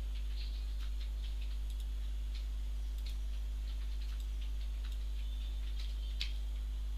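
Slow, scattered single keystrokes on a computer keyboard, a few isolated clicks with the sharpest about six seconds in, over a steady low hum.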